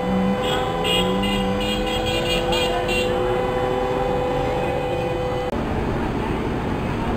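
Street traffic and people outside a busy building: running vehicle engines, one with a slowly rising note, over a steady hum, with a quick run of short high-pitched beeps in the first three seconds. About five and a half seconds in, the sound cuts abruptly to an even wash of outdoor noise.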